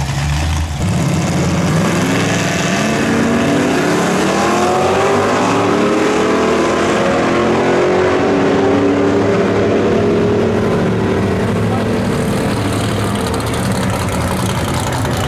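Two drag-racing cars, a Fox-body Ford Mustang and a vintage sedan, launch hard off the line and accelerate down the strip. Their engines climb in pitch through several gear changes, then run on steadier as the cars pull away.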